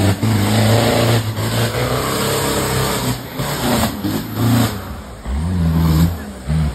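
Off-road 4x4's engine revving up and down under load on a rough jungle track, settling into a steadier low drone near the end.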